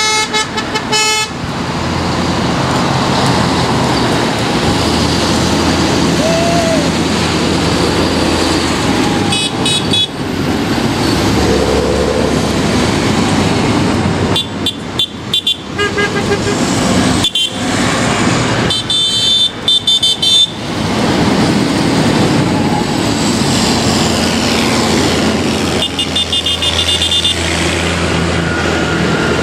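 A procession of large farm tractors driving past, their diesel engines running with a steady low drone. Horns toot about five times, some in short repeated blasts.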